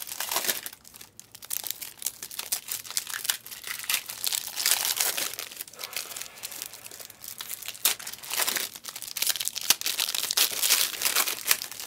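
Wrappers of 2023-24 Panini Select basketball card packs being torn open and crinkled by hand: irregular rustling crackles that come and go in spurts.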